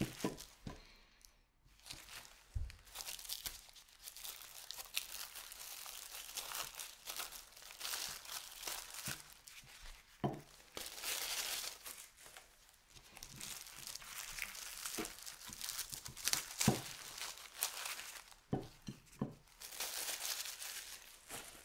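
Thin clear plastic wrapping crinkling and rustling as it is pulled off frozen baguettes by gloved hands, with a few sharper knocks in between.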